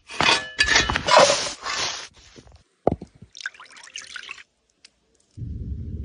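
Liquid splashing and dripping in several separate stretches, loudest in the first two seconds, with a sharp click about three seconds in.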